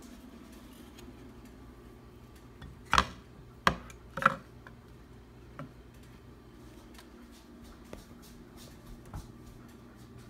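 A hand-held wall sign knocking and tapping against a wall as it is held up to it: three sharp knocks in quick succession about three to four seconds in, then a few fainter taps.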